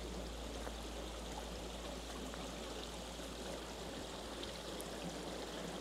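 Water running in a small channel: a steady flow with no distinct splashes or changes.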